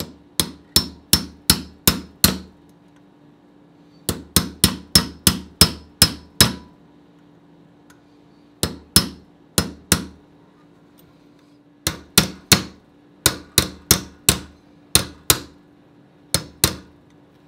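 Hammer striking a roll pin punch, driving tight-fitting steel roll pins through a side sling mount on an AR-15 front sight base. The sharp strikes come in quick runs of two to about nine blows, roughly three a second, with short pauses between runs.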